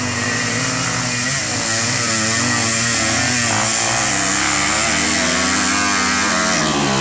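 Dirt bike engine working hard up a steep dirt-trail climb, its revs rising and falling as the rider gets on and off the throttle. It grows louder as the bike comes up toward the listener.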